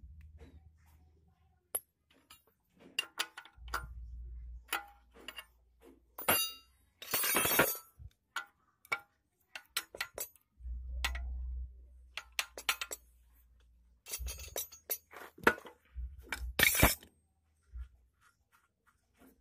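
Steel hand tools and engine parts clinking and tapping against each other in irregular sharp clicks while a diesel fuel injection pump is being unbolted. Two longer scraping bursts come about seven and seventeen seconds in.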